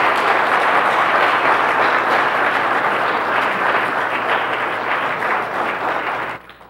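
A congregation applauding: many hands clapping together in a dense, steady patter that stops abruptly near the end.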